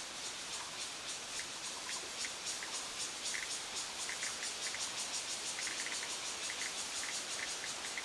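Cicada calling: a fast, evenly pulsed high-pitched buzz that swells over the first few seconds and eases off near the end. Scattered short chirps sound alongside it.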